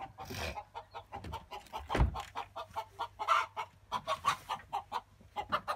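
Several chickens clucking and squawking in quick, short calls several times a second, with a low thump about two seconds in.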